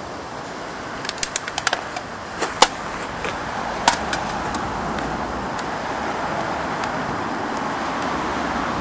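Steady road-traffic noise that slowly grows louder, with a run of sharp clicks and knocks between about one and four seconds in.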